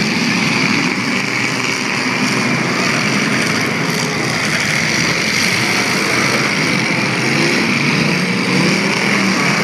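Engines of several demolition derby cars running and revving at once in a loud, steady din, their pitch rising and falling as drivers throttle up.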